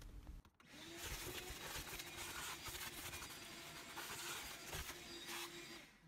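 Shop vac running faintly, a steady hiss with a low hum, vacuuming dirt and gravel from the car's footwell; it starts just under a second in.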